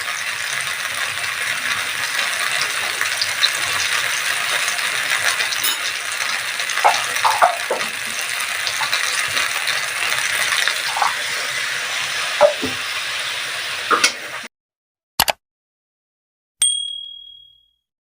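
Ground ginger paste sizzling in hot ghee in a kadhai, with a few light knocks of the spatula against the pan. The sizzling cuts off suddenly near the end, followed by a click and a single metallic ding that rings for about a second.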